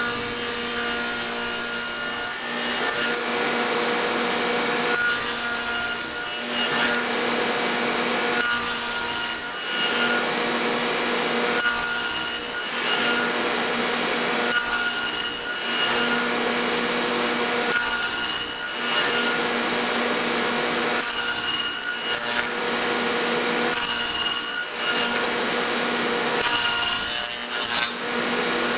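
Table saw with a stacked dado blade running steadily and cutting a half-lap joint in a board in repeated passes: about every three seconds the steady whine turns into a louder, higher cutting noise as the blade bites into the wood, nine passes in all.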